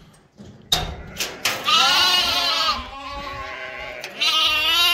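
Sheep bleating: two loud, long, quavering bleats with quieter bleats between them. A sharp knock sounds just under a second in.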